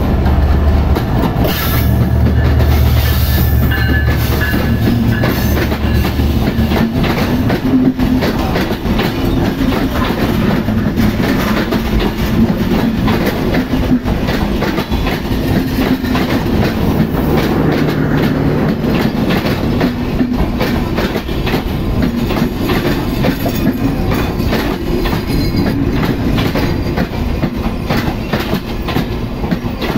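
Diesel locomotive 6611 passes close by with a deep engine hum for the first several seconds. Its passenger coaches then roll past with a fast, continuous clickety-clack of wheels over the rail joints and a steady rattle.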